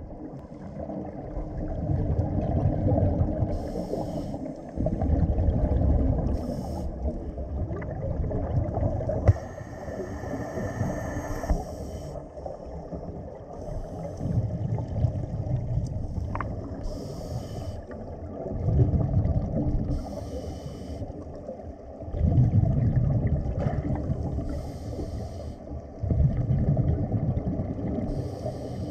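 Scuba diver breathing through a regulator underwater: a short hiss on each inhale and a low rumble of exhaled bubbles, repeating about every four seconds.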